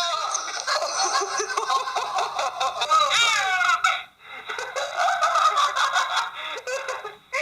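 People laughing, in bursts, with a short break about four seconds in.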